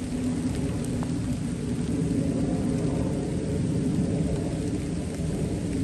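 Light steady rain, little more than a drizzle, falling on the leaves and ground, with a steady low rumble underneath.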